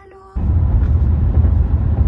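Loud, steady low rumble of road and wind noise inside a moving car's cabin, cutting in suddenly about a third of a second in.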